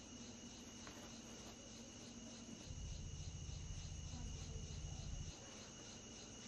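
Faint, steady chirring of crickets. A low hum comes in about two and a half seconds in and stops near the last second.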